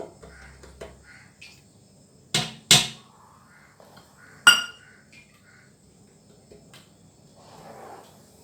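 Kitchenware being handled: two sharp knocks in quick succession, then about two seconds later a louder clink of metal or glass that rings briefly, with faint small handling noises between.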